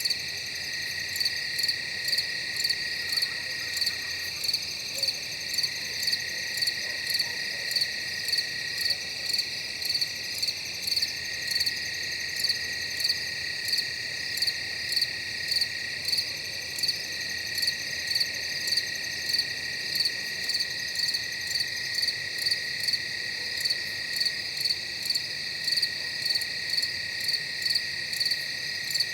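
Summer-night insect chorus: crickets trilling, with a steady high drone under a regular chirp that repeats about one and a half times a second.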